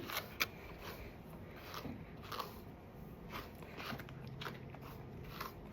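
A grooming brush being pulled through a dog's matted curly coat in short, irregular strokes, each a faint crunchy scratch as it works through the tangles.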